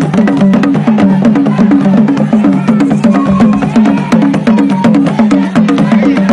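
Several hand drums played together in a fast, steady rhythm, the kind of drumming heard at a Chokwe dance festival.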